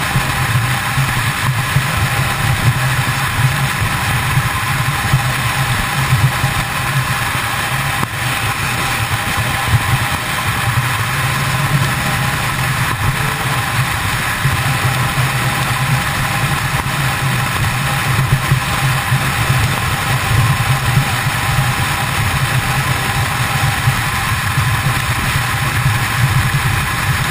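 Kawasaki ZX-10R inline-four engine running steadily at freeway cruising speed, with wind rushing over the microphone.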